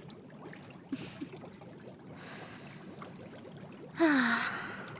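A woman breathes in, then lets out a breathy sigh about four seconds in that falls in pitch and fades. Under it runs a faint, steady trickle of hot-tub water.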